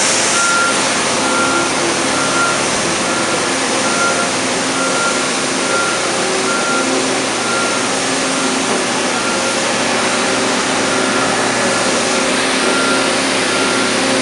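A construction vehicle's backup alarm beeping steadily, about once a second, over the constant diesel engine noise of heavy machinery working in an excavation.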